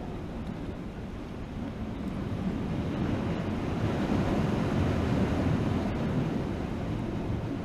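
Ocean surf washing against jetty rocks, with wind buffeting the microphone; the rush swells louder in the middle and eases off toward the end.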